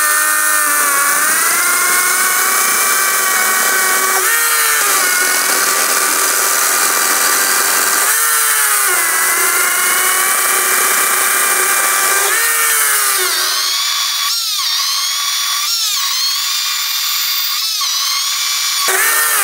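ES Industrial LCHS1454 54V cordless chainsaw cutting through a square wooden post: a steady electric motor and chain whine that drops in pitch about four times as the chain bites under load. It runs higher with brief dips over the last few seconds, then stops abruptly just before the end as the trigger is released.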